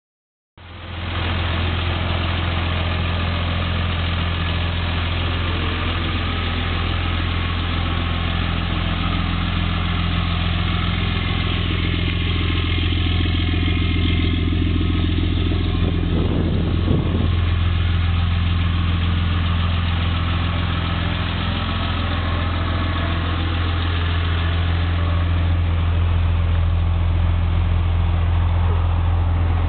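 2007 Dodge Ram 2500 Mega Cab pickup's engine idling steadily with a deep, even drone. There is a short burst of noise about halfway through.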